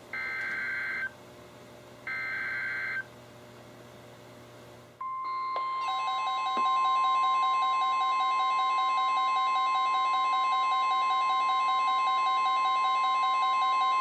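NOAA Weather Radio Emergency Alert System broadcast: two one-second bursts of the SAME digital header, a buzzy two-tone data screech ending a set of three. About five seconds in, the steady 1050 Hz weather-radio warning alarm tone begins, and other alert tones from several weather radios join it a second later, marking the start of a flood warning.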